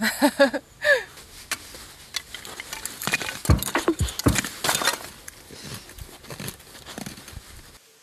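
A hatchet splitting a wooden plank into kindling: a run of sharp, irregular knocks of the blade biting into the wood, loudest around the middle. A brief voice sound comes at the very start.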